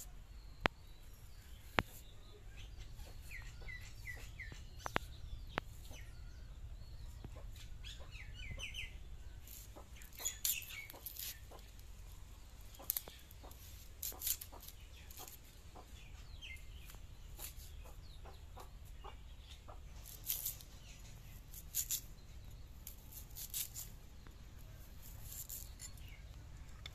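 Raw banana and onion being cut and peeled against a bonti, a curved blade fixed upright for cutting while sitting on the floor. There are a couple of sharp clicks in the first two seconds, then short crisp cutting and scraping sounds every second or two, over a low steady hum. A bird gives a few short chirps now and then.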